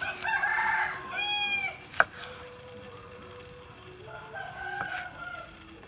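A rooster crowing: a long crow over the first second and a half, then a fainter second crow about four seconds in. About two seconds in comes a single sharp knock of the knife on the wooden cutting board.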